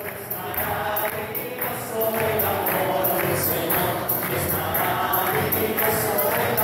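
Congregation singing a hymn, with a tambourine jingling in a steady beat.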